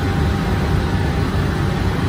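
Steady low rumble of a running rotary-deck bread oven.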